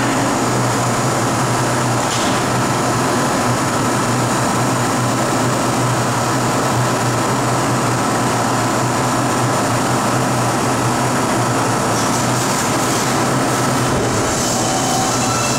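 R142 subway train standing in the station with its doors open, giving off a steady low hum with a thin whine held above it. A higher hiss comes in near the end.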